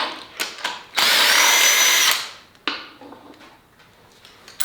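A cordless power tool's motor runs for about a second with a steady whine. Short metallic clicks of tools and parts come before and after it.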